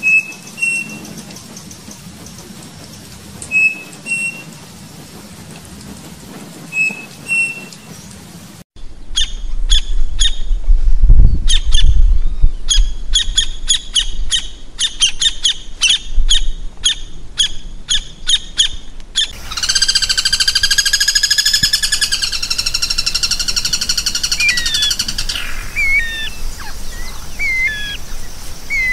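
Three bird recordings in succession. First a striped cuckoo (saci) gives its clear two-note whistle three times, a few seconds apart. About nine seconds in comes a campo flicker's rapid series of sharp, loud repeated calls with a brief low rumble under it, and about nineteen seconds in a group of guira cuckoos (anu-branco) calls with drawn-out, slightly falling notes, then scattered short gliding notes.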